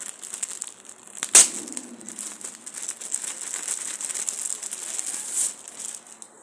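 Crinkly packaging of a new shirt being handled and pulled open, a continuous rustle, with one sharp knock or snap about a second and a half in.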